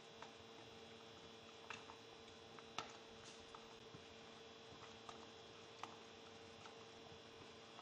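Near silence: room tone with a steady low hum and a few faint scattered clicks, the clearest a little under three seconds in.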